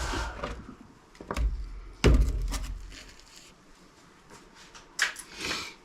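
Scrap parts being handled and set down: a few knocks and thunks, the loudest about two seconds in, and a short rattle of handling near the end.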